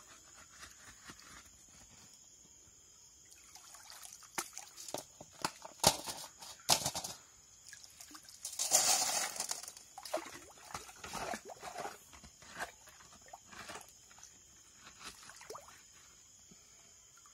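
Shovel digging wet gravel from the bottom of a flooded, muddy pit: irregular scrapes and knocks of the blade on stones, with water sloshing and splashing. A few sharp strikes come about six seconds in, and a longer splashing scrape follows about halfway through.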